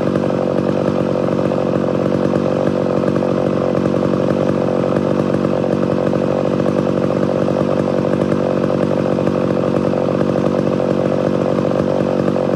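Mildly ported Homelite Super XL Auto two-stroke chainsaw running steadily at an even, unchanging speed.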